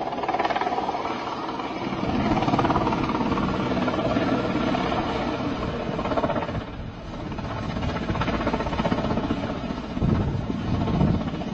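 Helicopter flying low at a distance, its rotor and engine heard as a steady, dense chopping noise that dips briefly about seven seconds in and grows louder about ten seconds in.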